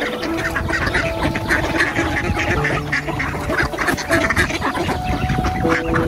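A flock of ducks quacking, many short calls overlapping without a break.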